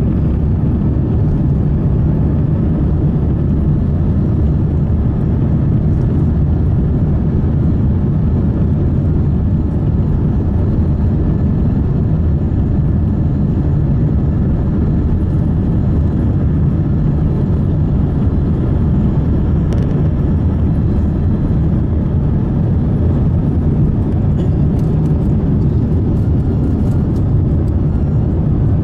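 Airbus A350-900's Rolls-Royce Trent XWB engines at takeoff power, heard inside the cabin as a steady, loud, low roar through the takeoff roll and climb-out.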